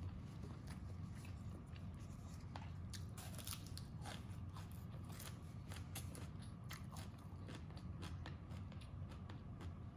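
Crisp crunching of a raw green onion stalk being bitten and chewed close to the microphone, a dense run of sharp snaps that is thickest in the middle.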